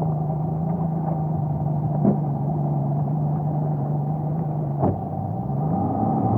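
Boat's outboard motor running at a steady low speed, throttled down briefly about five seconds in and then picking back up. Two light knocks come about two seconds in and just before the dip.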